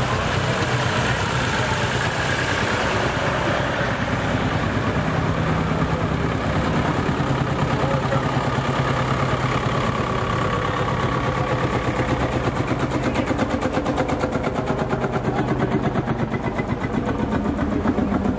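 Vintage tractor engines running as a line of old tractors drives slowly past, a steady low engine note; in the second half the rapid firing beat of one tractor passing close becomes more distinct.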